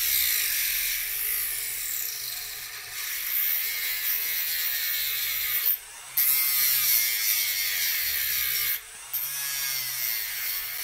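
Hand-held motor tool grinding a groove down the middle of steel office staples, a steady high-pitched grinding that drops out briefly twice, about halfway through and again near the end. The groove marks the length of the spike.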